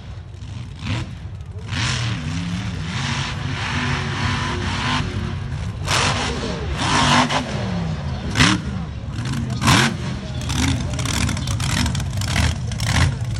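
Mud racing buggy's engine revving hard, its pitch rising and falling as the throttle is worked through the mud course, with short sharp bursts of noise scattered through.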